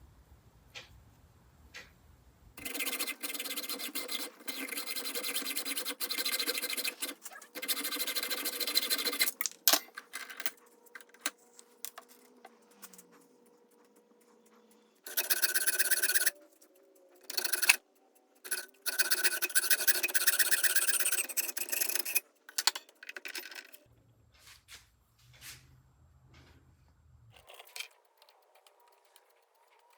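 Micro metal lathe turning a small knob, with a tool scraping against the spinning workpiece in long stretches of several seconds and short pauses between.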